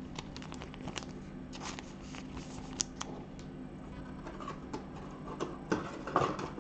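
Trading cards and rigid clear plastic card holders handled by gloved hands: scattered small clicks and taps, with a louder scraping rustle near the end.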